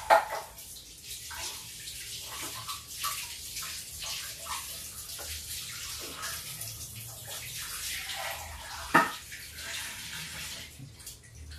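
Water running steadily, with a sharp clatter right at the start and another knock about nine seconds in.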